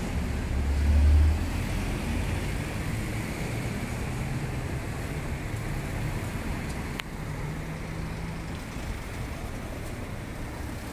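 Road traffic: a vehicle passes close by in the first second or so, then a steady background of traffic noise.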